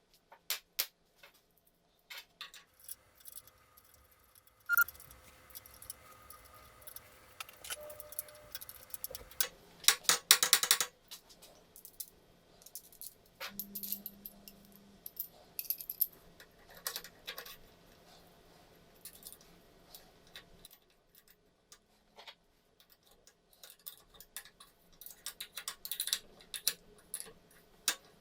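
Scattered metallic clicks and clinks of small steel parts and hardware being handled, with a louder clatter of knocks about ten seconds in.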